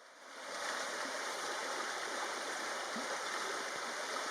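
Steady rushing, hissing background noise like a flowing stream, fading in over the first second.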